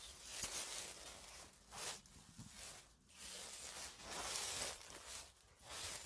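Footsteps through dry leaves and undergrowth, with twigs and brush rustling, in about half a dozen uneven bursts with short pauses between them.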